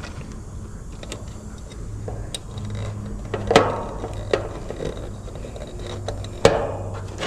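Small clicks and knocks of wire terminals and metal parts being handled as hard start kit leads are pushed onto an AC capacitor's HERM and common terminals, with two sharper knocks, one midway and one near the end, over a low steady hum.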